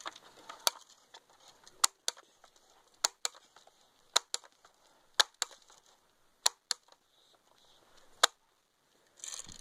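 Sharp plastic-and-metal clicks from a Sportsman 900 multi-pump BB air rifle being reloaded and pumped, mostly in pairs about once a second, the loudest near the end.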